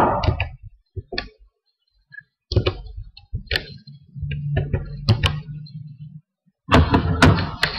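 Computer keyboard keys typed in irregular clicks and thunks as an IP address is entered, with a low steady hum underneath in the second half.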